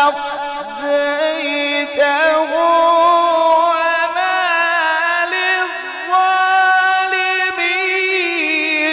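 A man's voice in Quran recitation (tilawat), drawn out in a long melodic line: held notes ornamented with quick pitch turns, stepping higher around the middle and ending in rapid turns, amplified through a microphone.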